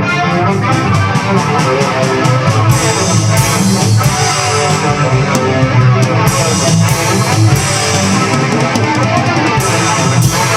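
A rock song mix played back: electric guitars with bass and drums, loud and peaking near full scale.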